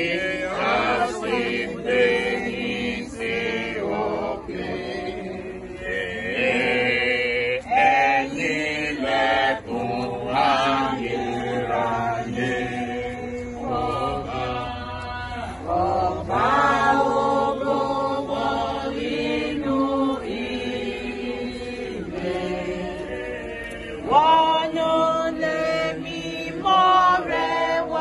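A church congregation singing a hymn together, many voices in a chant-like unison.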